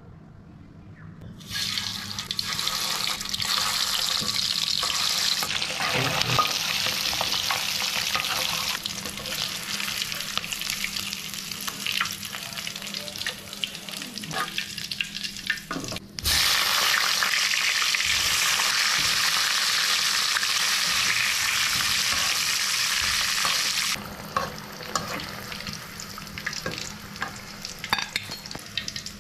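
Whole eggs and pointed gourd slices deep-frying in hot oil in a karahi, a dense sizzle. It starts about a second and a half in, jumps louder after a sudden cut near the middle, and drops lower near the end, where light clicks of a metal slotted spoon come through.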